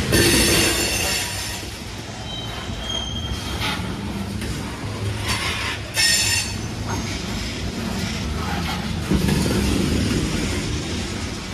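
Coal train's rapid-discharge coal cars rolling past close by: a steady rumble of steel wheels on rail with occasional clacks. Brief high-pitched wheel squeals come right at the start and again about six seconds in.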